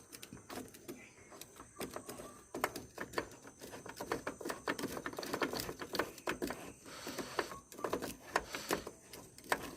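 Irregular clicks, taps and knocks of small metal parts as a car door lock part is fitted back into place by hand.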